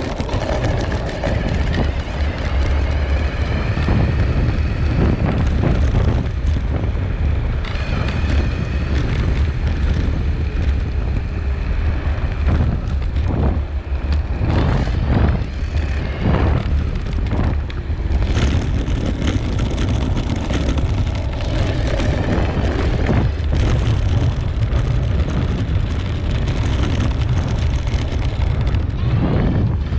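Dualtron Raptor 2 electric scooter riding on a paved path: heavy wind noise on the low-mounted camera's microphone over a steady tyre rumble on the asphalt. A faint motor whine rises and falls in pitch with speed, and a few knocks from bumps come around the middle.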